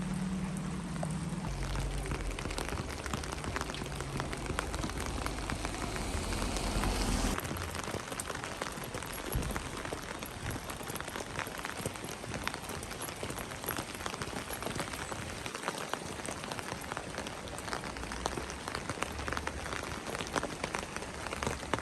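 Heavy rain falling, a dense patter of many close drops, with a low rumble under it for the first seven seconds or so.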